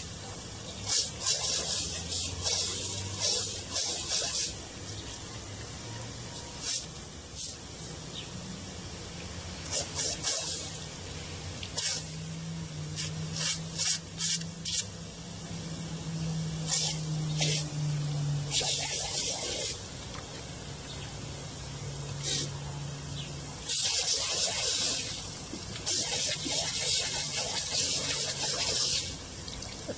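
Pop-up lawn sprinkler's water jet hissing and splattering in irregular bursts of a second or two as a dog bites and paws at the spray.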